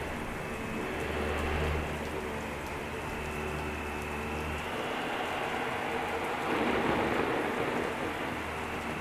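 Steady heavy rain over the running motor hum and whine of a vacuum cleaner; the low part of the hum drops away about halfway through.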